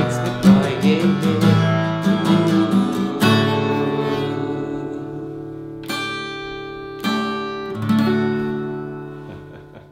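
Acoustic guitar strummed in a quick rhythm, then a few single chords struck and left to ring, dying away near the end.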